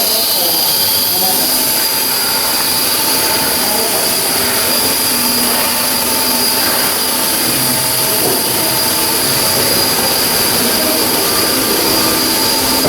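Steady loud machinery noise on a shipyard work floor: a continuous hiss with a constant high whine and no break.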